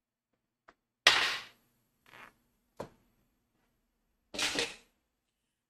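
Tarot cards being handled and shuffled at the table: three short bursts of card noise and a sharp tap, the loudest burst about a second in.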